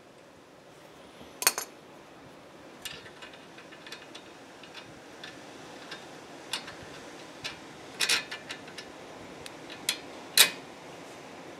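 Small, sharp metallic clicks and taps at irregular intervals: needle-nose pliers and small metal parts knocking against the strut bracket and camber bolt while a short piece of nail is worked in beside the bolt. The loudest clicks come about a second in, in a cluster past the middle and near the end.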